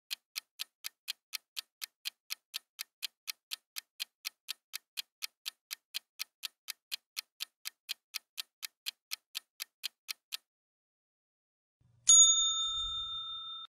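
Quiz countdown timer sound effect ticking about four times a second for roughly ten seconds, then stopping. About a second and a half later a bright bell ding rings out and fades, marking the answer reveal.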